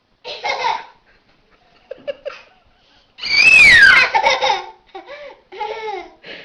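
A toddler laughing: a few short giggles, then a loud, high squeal of laughter about three seconds in that slides down in pitch, followed by quick bursts of laughter.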